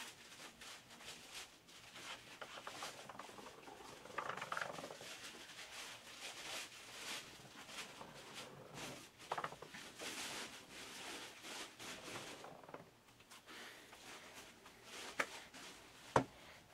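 Faint scraping and handling noise of a plastic glue bottle being squeezed and drawn along a wooden harpsichord lower guide, with two sharp knocks near the end.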